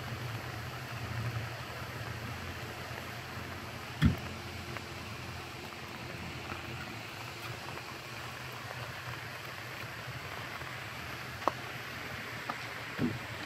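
Steady low rumble and road noise of a car driving, with one sharp thump about four seconds in and two short clicks near the end.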